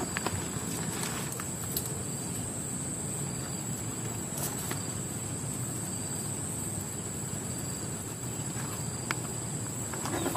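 Steady outdoor ambience: a low rumble under a thin, high, steady insect drone, with a few faint clicks and rustles from a tarp being handled.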